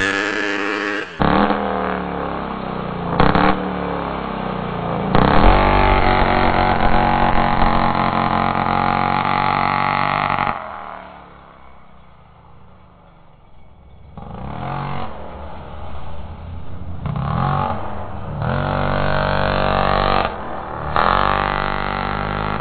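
Large-scale RC buggy's Taylor Rc 50GT two-stroke petrol engine revving hard under repeated throttle blips, its pitch rising and falling. About ten seconds in it drops to a faint drone as the car runs off into the distance, then revs up loudly again as it comes back.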